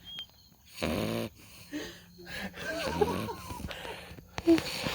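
A puppy snoring in her sleep: a buzzing snore about a second in, a shorter one near two seconds, and a longer one around three seconds that wavers in pitch.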